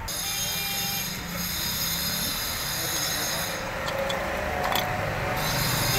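Steel gears and shafts of a motorcycle gearbox clicking against each other and against the aluminium crankcase as the gear cluster is seated, a few light metallic clicks about two-thirds of the way in, over a steady mechanical background noise.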